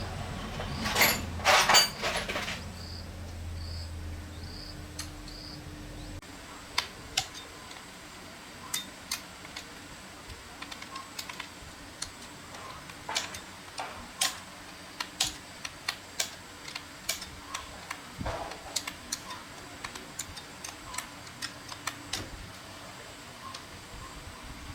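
Irregular light clicks and taps of tools and small parts being handled during workshop repair work, with a few louder clatters near the start. A low steady hum stops about six seconds in.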